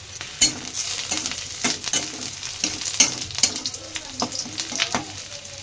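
Sliced onions and curry leaves sizzling in hot oil in a kadai, stirred with a metal spatula that scrapes against the pan in quick, irregular strokes starting about half a second in.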